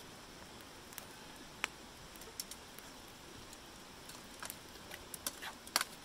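Open wood campfire crackling faintly, with scattered sharp pops over a low hiss; the pops come closer together near the end.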